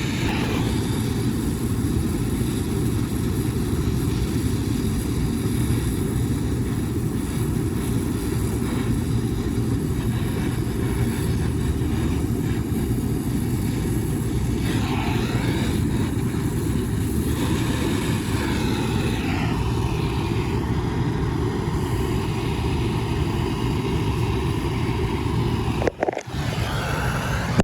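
Soldering torch flame running steadily while copper refrigerant line joints are soldered, heard as a constant low rumbling hiss that briefly cuts out near the end.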